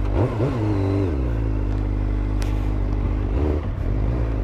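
Motorcycle engine heard on board while riding: the revs rise and fall in quick changes during the first second, then hold steady, with another short rev change about three and a half seconds in.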